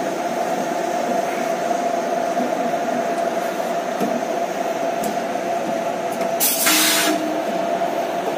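Steady high whine of equipment in a three-phase electric locomotive's cab, with one short, loud hiss about six and a half seconds in.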